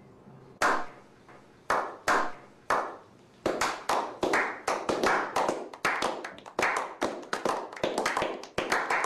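A slow clap building into applause: single hand claps about a second apart, then from about three and a half seconds in more hands join and the clapping quickens into a ragged round of applause.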